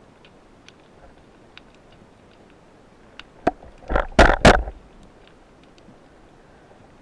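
Underwater ambience heard through a camera housing on a reef: a low hiss with faint, scattered clicks. About three and a half seconds in comes one sharp click, followed by a loud cluster of three knocking, rushing bursts lasting about a second.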